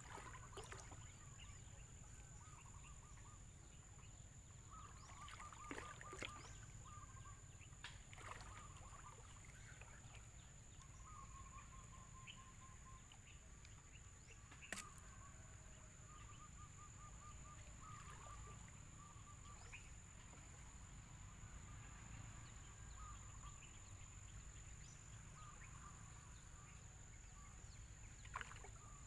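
Faint river ambience with a steady low rumble and a steady high whine, broken several times by short, rapid chattering bird calls. A few light knocks and drips come from the gillnet being hauled over the wooden canoe.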